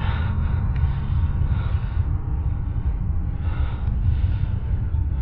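A steady, low rumbling noise with a fainter hiss above it, holding at much the same level throughout.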